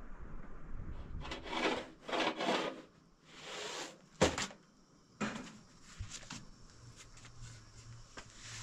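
Three scraping strokes of about a second each, then a sharp knock, a shorter scrape and a few faint ticks.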